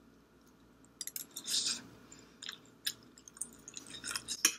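Roast chicken skin and meat being pulled apart with a fork and chewed close to the microphone: a run of sticky, crackly bursts and light clicks at irregular intervals, starting about a second in.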